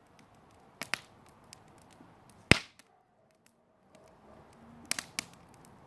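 Wood fire crackling: a soft hiss with many small ticks and a few sharp pops, the loudest about two and a half seconds in, then two more close together near the end.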